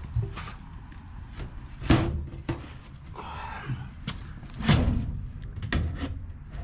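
Drawers of a stainless steel tool roll cabinet being worked in and out: a string of metal clunks and knocks as they shut, with a grating slide about three seconds in where a misaligned drawer catches on the bottom, bent out of line by transit damage.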